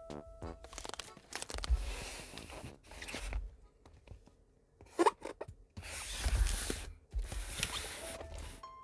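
Packaging being torn and crinkled in several stretches, with a brief sharp squeak about five seconds in, as the keyboard kit is unpacked.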